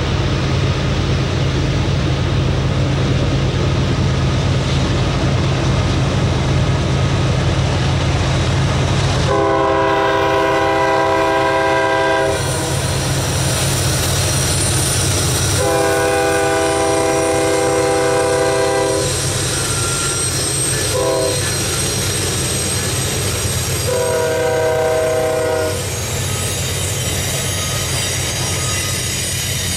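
Freight train's diesel locomotives approaching with engines running, then the lead locomotive's multi-note air horn sounds long, long, short, long, the standard grade-crossing signal. The cars then roll past with the clack of wheels over the rail joints.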